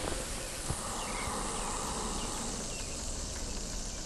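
Fishing line running off the spool of a spinning reel during a long-range cast, a steady buzzing hiss that thickens about a second in.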